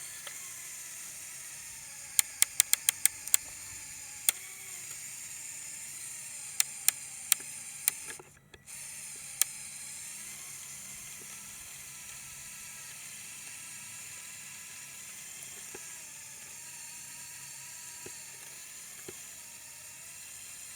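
A remote-controlled Lego Technic 4x4 model runs under load over a steady hiss. A quick run of sharp clicks comes about two seconds in, then a few more scattered clicks over the next several seconds, typical of the model's plastic gears skipping under too much torque. The sound drops out briefly about eight seconds in.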